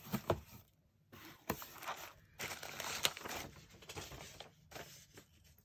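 Cardboard box being opened by hand: a flap folded back and a paper packing slip lifted out. It gives irregular rustling and scraping with a few sharp clicks.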